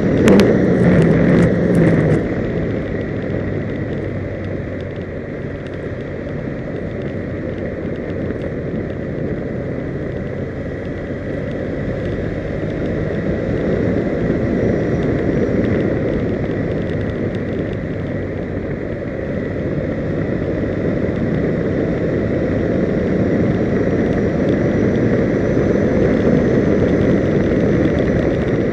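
Wind rushing over an onboard camera's microphone, with the tyre and road rumble of a vehicle moving at speed on asphalt. It is steady, a little louder in the first two seconds, and swells slowly in loudness later on.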